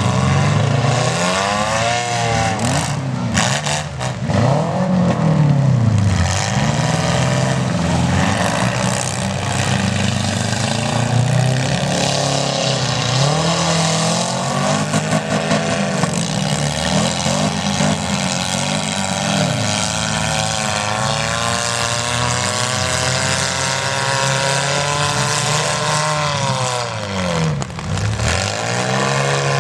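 Several demolition derby cars' engines revving up and down over and over as they drive and ram, with a knock or crunch of impact about three seconds in.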